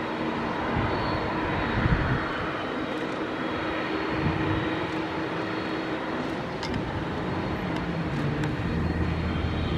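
McDonnell Douglas MD-11F trijet freighter's jet engines running at low taxi thrust: a steady rushing noise with a faint held whine.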